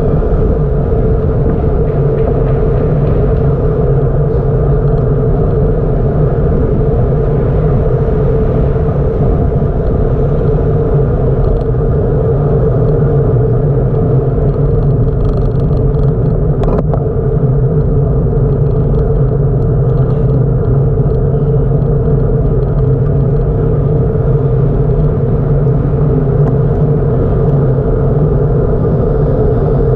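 Steady wind and road rumble on the microphone of a camera riding along on a moving bicycle, with one brief click about halfway through.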